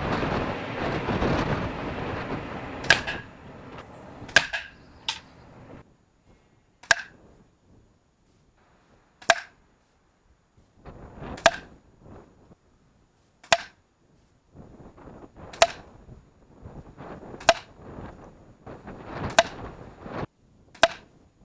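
CO2-powered ASG Tac Repeater air rifle firing a string of single shots, about a dozen sharp cracks, roughly every two seconds in the second half. A rushing noise fills the first few seconds.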